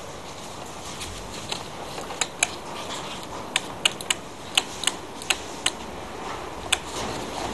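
About a dozen sharp, irregular clicks and taps from a spark plug and spark plug tester being handled on a plastic engine cover, over a steady low background hum.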